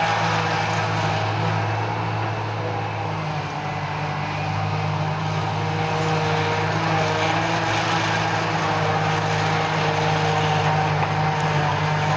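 John Deere 8800 self-propelled forage harvester running under load while picking up and chopping grass, together with the John Deere tractor driving alongside it: a steady engine drone with a broad rushing noise above it.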